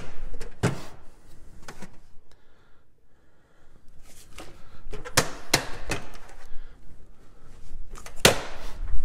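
Rummaging in garage storage cabinets for a bottle: several sharp knocks and clunks of cabinet doors and containers, the loudest about eight seconds in, with rustling in between.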